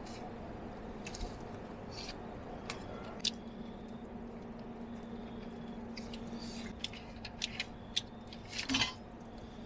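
Someone eating quietly: scattered light clicks and small handling noises, a short cluster of them near the end, over a faint steady hum.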